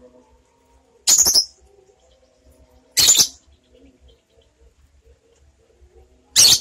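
Light-blue lovebird giving three short, shrill calls a few seconds apart.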